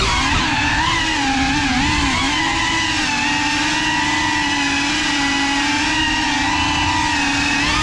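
Small FPV quadcopter's electric motors and propellers whining. The pitch wobbles up and down with the throttle for the first couple of seconds, then holds steady.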